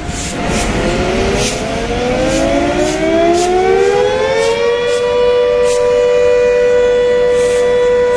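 Electric locomotive's machinery spinning up: a whine of several tones that rises in pitch for about four seconds, then holds steady and loud.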